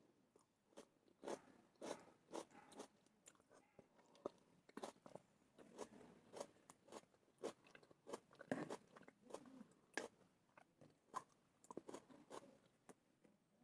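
A person chewing raw herring with chopped onion close to the microphone: faint, irregular small wet clicks and crunches, a few each second.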